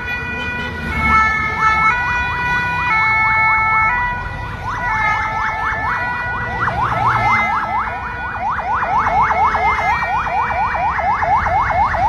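Vietnamese fire truck siren: a two-tone hi-lo wail alternating about once a second. From about five seconds in, a rapid rising yelp joins it, its sweeps quickening to three or four a second and growing louder near the end.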